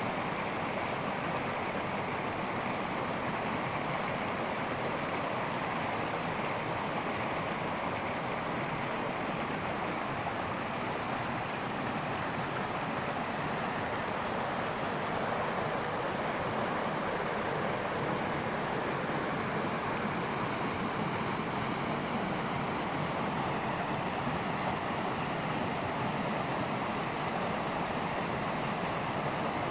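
Steady rushing water, unbroken throughout.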